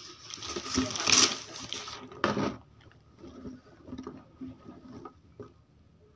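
Cardboard box and plastic packaging rustling and crinkling as the bike's handlebar and wrapped parts are pulled out. The loudest rustles come about a second in and just after two seconds, then it goes faint.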